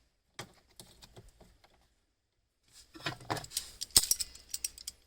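Small clicks and light rattling from a Jeep TJ headlight switch assembly and its dash trim being worked loose by hand: a few faint clicks about half a second in, then a busier run of rattles and clicks over the last two seconds, with one sharp click near the four-second mark.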